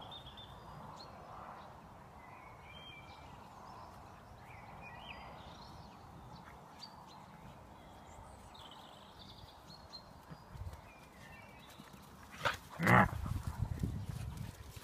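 Airedale terrier puppy at play with a stuffed teddy: a loud, short bark-like sound about thirteen seconds in, followed by low rumbling and scuffling as the puppy rags the toy. Before that there is only a faint background with scattered high chirps.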